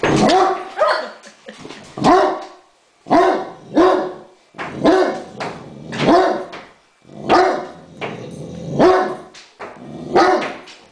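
Great Dane barking at a toy remote-control helicopter: about ten loud barks, one every second or so.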